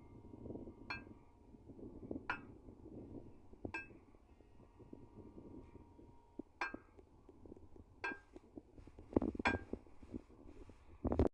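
Steel striking steel during an excavator bucket change: about seven sharp clinks, each with a short metallic ring, coming one to two seconds apart, with two in quick succession near the end, over a low steady rumble.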